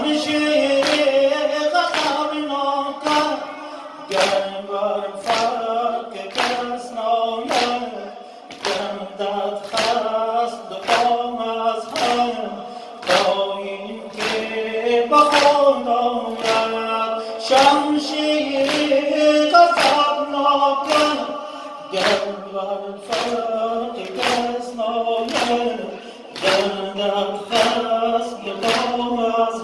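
Mourners beating their chests in unison, about one strike a second, keeping time to a lament sung by a male lead singer through a microphone with the men singing along.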